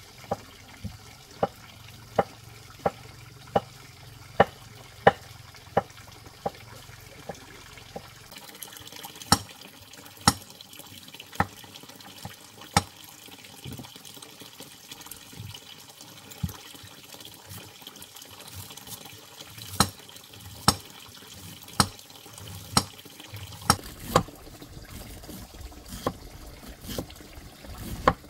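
Repeated sharp knocks, evenly spaced at about three every two seconds for the first eight seconds, then coming at irregular intervals.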